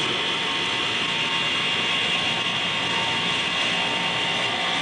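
Motor-generator set, a 3/4 hp induction motor turning a 2900-watt generator, running steadily with a steady high whine.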